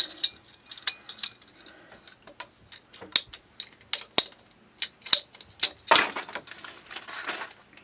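Scattered sharp clicks and clinks of a metal hand tool and brass fittings being handled while working blue PEX pipe, with a longer scraping rustle about six seconds in.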